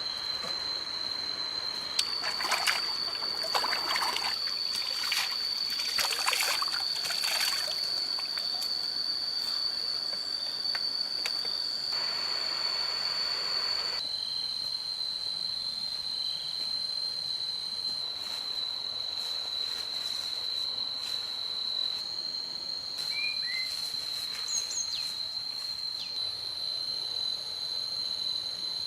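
Steady high-pitched insect drone, with scattered rustling and trickling noise in the first several seconds and a few short chirps near the end. The drone's pitch shifts slightly twice, where the footage is cut.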